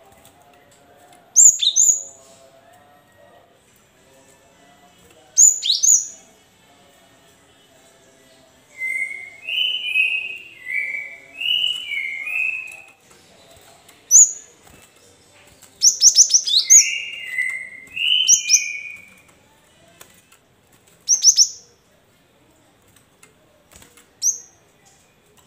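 Cinereous tit (gelatik batu) calling and singing. Sharp high down-slurred notes come at intervals throughout, and about nine seconds in, and again around sixteen seconds, it breaks into runs of repeated two-note whistled song phrases.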